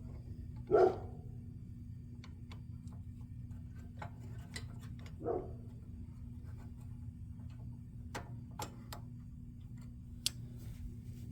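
Small metallic clicks and ticks of hand tools and parts being worked on a go-kart carburetor, over a steady low hum, with two louder short sounds about a second in and about five seconds in.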